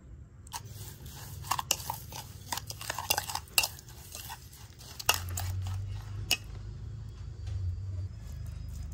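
Irregular crisp crunches and clicks for about six seconds, the loudest in the first few seconds, with a low steady hum from about five seconds in.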